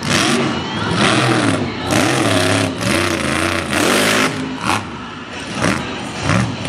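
A mega truck's engine revving hard, its pitch rising and falling about once a second, with a loud rush of spinning mud tyres that surges with the revs.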